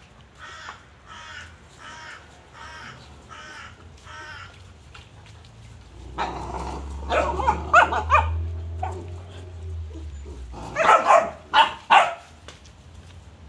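Cane Corso puppies barking and growling in play. A run of evenly spaced, quieter barks comes in the first few seconds, then louder clustered barks about six seconds in and again near the end.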